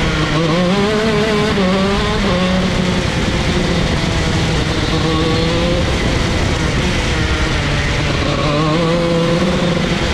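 Vortex ROK 125 cc two-stroke shifter kart engine at racing speed. Its pitch climbs and falls several times as the kart accelerates and slows for corners, rising again near the end.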